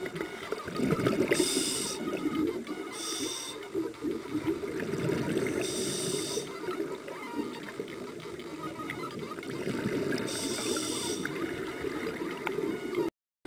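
Scuba regulator breathing underwater: a continuous bubbling rumble of air and water, broken by four short bursts of hiss spaced a few seconds apart.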